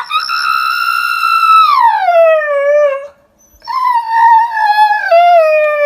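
Dog howling: two long howls, the first held high and then sliding down in pitch, the second lower and wavering.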